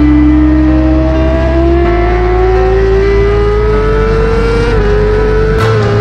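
Suzuki GSX-R1000R's inline-four engine, through a full aftermarket exhaust, pulling hard at full throttle with its note steadily rising. Quick upshifts near the end drop the pitch slightly. Background music with low bass notes plays underneath.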